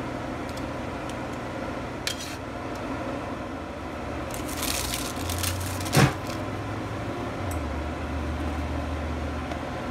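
Thin plastic sheet rustling as rolled pie dough is peeled off it, then a single sharp knock on the countertop about six seconds in, over a steady low hum.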